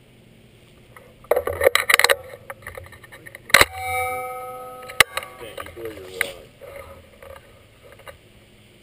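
Metallic clattering of the shotgun being handled, then about three and a half seconds in a single sharp clack that leaves a ringing metal tone fading over about a second and a half, and another click a second and a half later.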